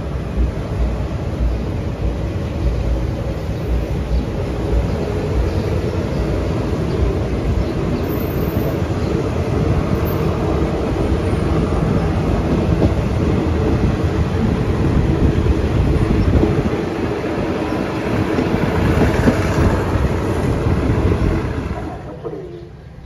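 Passenger train running on the rails: a steady, loud rumble and rattle of wheels and carriage, which falls away near the end.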